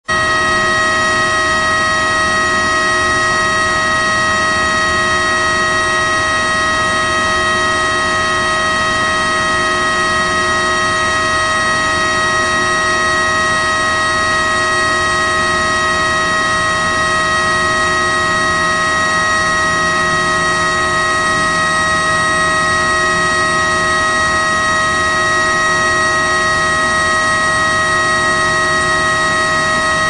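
Service fan running at a constant speed. It makes a steady whine of several fixed pitches, strongest in the upper-middle range, over an even rush of air, with no change in speed or level.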